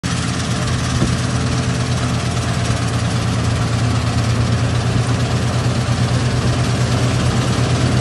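Combine harvester at work cutting standing wheat: its engine runs at a steady low hum under an even wash of noise from the cutter and threshing machinery.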